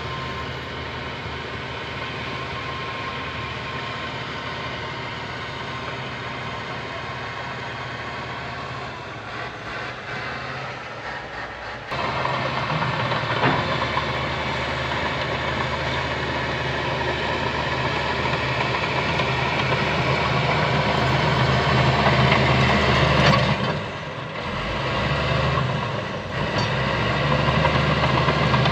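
Heavy diesel engine of earthmoving equipment running steadily. About twelve seconds in it jumps louder and keeps building, then eases off briefly and picks up again near the end.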